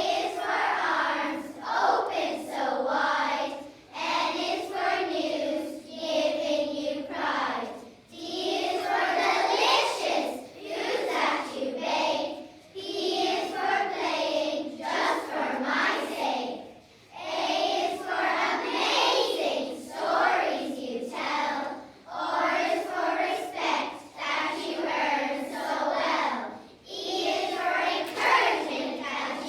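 A class of young girls reciting a poem together in unison, in rhythmic phrases of about two seconds each with brief breaths between them.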